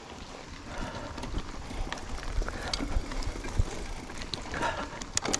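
Silverback Stride SX 29 hardtail mountain bike ridden over rough trail, the bike rattling and clicking with irregular knocks over a low rumble.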